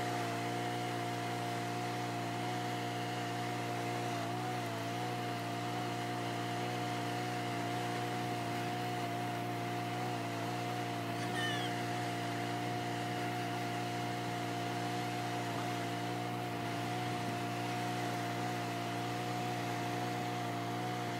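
A motor running steadily at one constant pitch, a smooth even hum with no change in speed.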